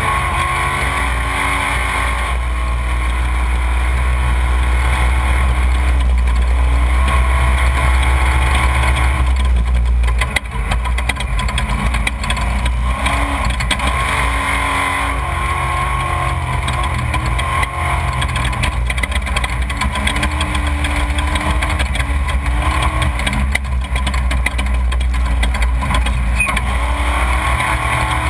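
Off-road desert race vehicle's engine running hard, its pitch climbing and dropping back again and again through the gears, over a steady rush of wind and terrain noise. The loudness dips briefly about ten seconds in.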